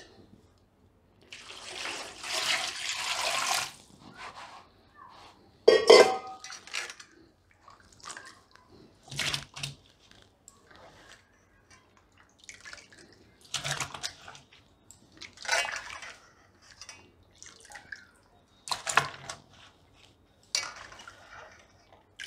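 Raw potato slices and water being handled between a steel pot and another container: wet splashing and dripping with clinks of the pot. A longer splash or pour runs from about one to four seconds in, and a sharp knock of the vessel comes about six seconds in.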